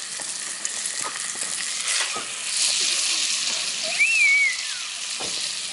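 Food sizzling in a hot frying pan, the sizzle swelling a little past the middle. About four seconds in, a brief high wavering whistle rises and then falls away.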